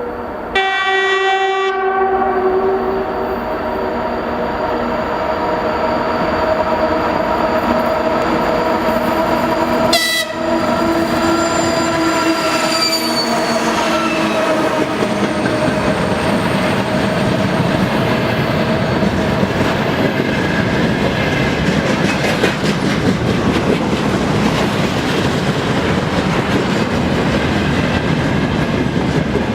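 2TE116U diesel locomotive sounding its horn in a long blast, with a short break about ten seconds in before a second blast whose pitch sinks slightly as it passes. The diesel engine and freight wagons then roll by with a steady rumble and wheel clatter.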